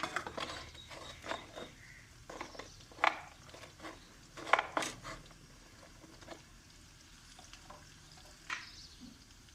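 A spoon stirring onions frying in a metal karahi, with a series of irregular clinks and knocks against the pan. Light sizzling runs underneath.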